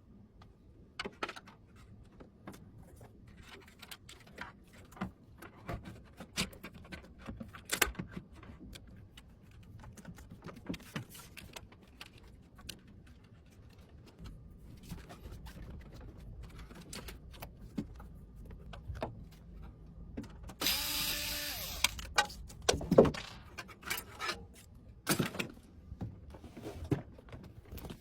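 Scattered light clicks and taps of parts being handled, with a small electric motor whirring once for about a second and a half near the end.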